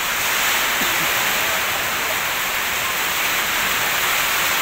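Heavy storm rain pouring down, a loud, steady hiss.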